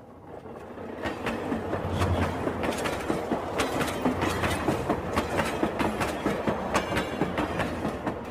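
Rail King toy train running on its track with a steady clatter of many small clicks, building up over the first second.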